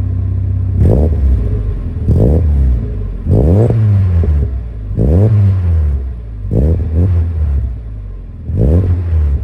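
Mazda MX-5's four-cylinder engine through a newly fitted Malian rear silencer, idling and then blipped six times, each rev rising and falling back to idle within about a second. The owner says the exhaust joint is still blowing.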